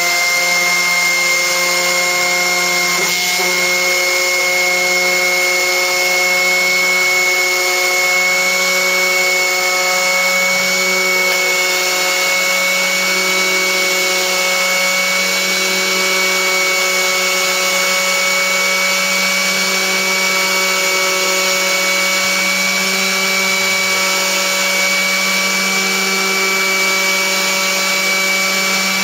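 Small hand-held electric power tool running steadily at one constant speed while it is worked along a car's chrome window trim. Its motor gives a high whine over a lower hum.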